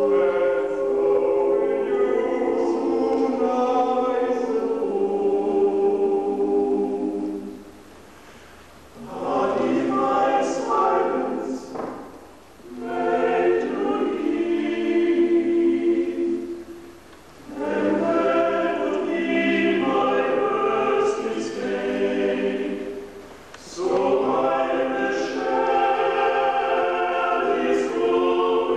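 Male vocal ensemble singing unaccompanied in sustained chords, the phrases separated by brief pauses.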